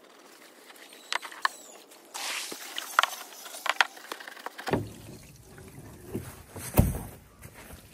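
Scrubbing and splashing in an emu water trough: a string of sharp knocks and sloshes. A lower, rumbling sound joins about two-thirds of the way through.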